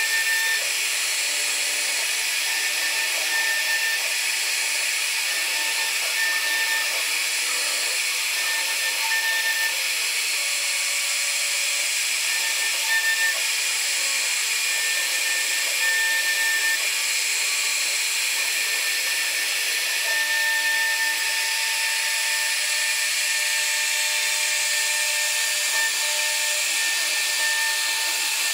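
CNC router spindle cutting a carving into wood, a steady high-pitched running noise with a thin whistling tone that cuts in and out as the machine moves.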